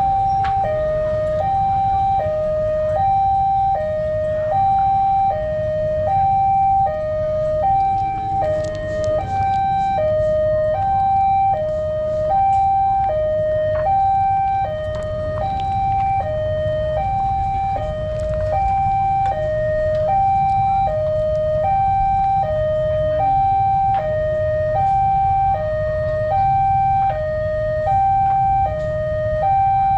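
Railway level-crossing warning siren alternating between two tones, E-flat5 and G5, about one high-low cycle every one and a half seconds, warning that a train is approaching and the crossing is closed. A steady low rumble runs underneath.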